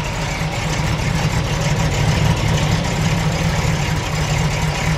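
A 350 small-block V8 crate engine in a 1963 Chevy Nova, running steadily at low speed near idle as the car creeps forward.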